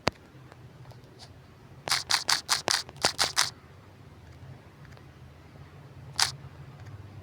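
Sharp clicks from working a computer interface: one click, then a quick run of about eight clicks about two seconds in, and one more near the end, over a faint steady low hum.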